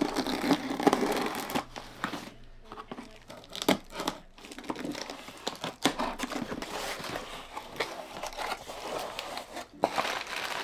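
Scissors blade slitting packing tape on a cardboard shipping box, with tape tearing and cardboard flaps scraping as the box is opened, then plastic packing crinkling near the end. Irregular rustles and sharp little clicks.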